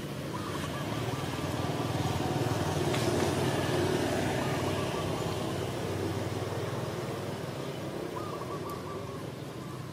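A motor vehicle passing: a low engine and road noise that swells over the first three or four seconds, then slowly fades.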